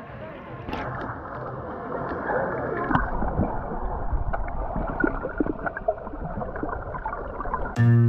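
Swimming-pool water gurgling and sloshing, muffled as heard with the camera under the surface while a child in armbands swims past, with small scattered clicks. Acoustic guitar music comes in near the end.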